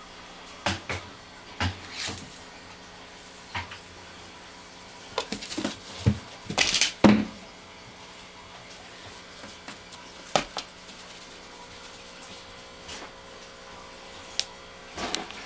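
Scattered knocks, taps and scuffs of a Norwegian Forest Cat at play, irregular and spaced apart, with a louder cluster of rustling scuffs about six to seven seconds in.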